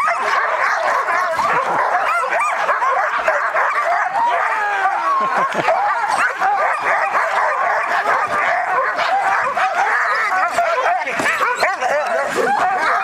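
A chorus of many harnessed sled dogs yipping, barking and whining at once, a dense, unbroken clamour of overlapping high calls. It is the excited noise of sled dogs in harness waiting to run.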